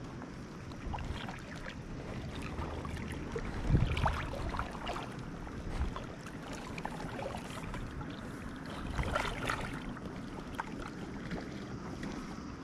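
Water splashing and lapping at the surface while a hooked black sea bream is played in, with louder splashes about 4 s and 9 s in.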